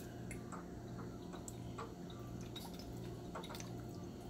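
Faint scattered ticks and drips of hot sauce being shaken from a bottle onto raw chicken wings in a bowl, over a low steady hum.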